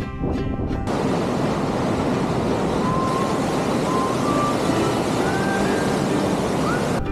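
A steady, loud rushing noise that cuts in about a second in and stops abruptly near the end.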